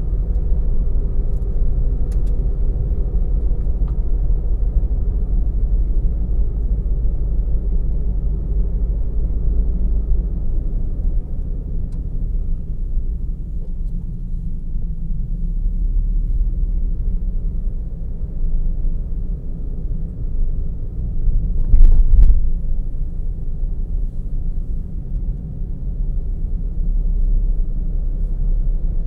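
A car driving steadily, with a low rumble of engine and tyres on the road. About 22 seconds in there is one brief, loud thump, as from a bump in the road.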